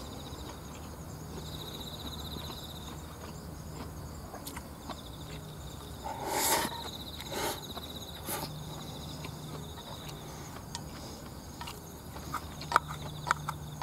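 Eating canned rice from a metal can with wooden chopsticks: sharp clicks and scrapes of the chopsticks against the can, loudest a little past the middle and again near the end, between quieter chewing. Insects trill steadily in the background in a fast, even pulse.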